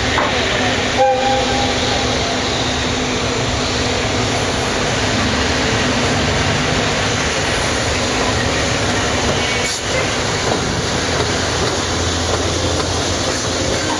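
Freight train running past on the rails: a steady, loud rumble of wheels and wagons that holds evenly throughout.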